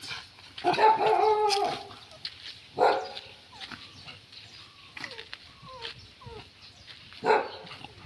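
Dogs vocalising: a drawn-out whine about a second in, short sharp barks around three seconds and again near the end, and faint high whimpers in between.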